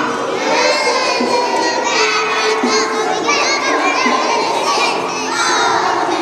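A group of children shouting and yelling over one another: a loud, continuous clamour of high voices.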